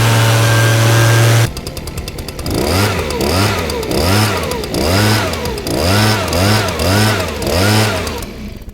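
Petrol Stihl leaf blower engine held at steady high revs, cut off abruptly about a second and a half in; then, after a brief lower-pitched stretch, the throttle is blipped over and over, the revs rising and falling about twice a second before fading out near the end.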